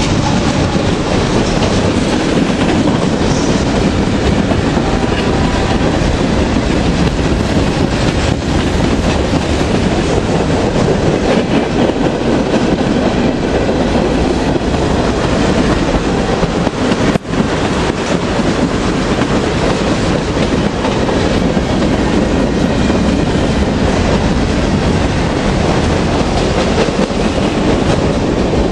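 Freight cars, covered hoppers and tank cars, rolling past at speed: a steady, continuous noise of steel wheels running on the rails.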